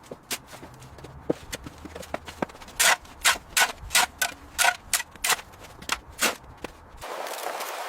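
A run of sharp knocks, about two or three a second and loudest in the middle, after a few scattered clicks; about seven seconds in they stop and a steady hiss takes over.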